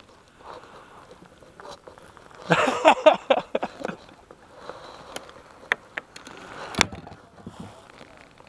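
Close handling noise of a just-caught crappie, the jig and the rod and line: a dense burst of rustling and clicking about two and a half seconds in, lasting about a second and a half, then a few separate sharp clicks and knocks.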